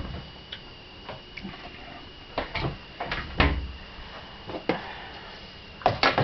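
Scattered knocks and clatter of kitchen things being handled and set down on a worktop, the loudest a dull thump about three and a half seconds in and a quick run of clatter near the end. A faint steady high tone runs underneath.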